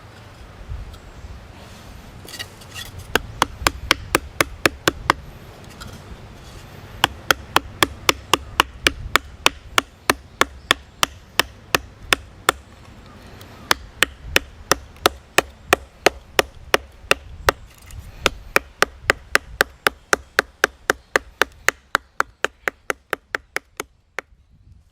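Sharp, quick chopping strikes of a blade into small pieces of firewood, about three a second, in four runs with short pauses between them, as kindling is prepared for a campfire.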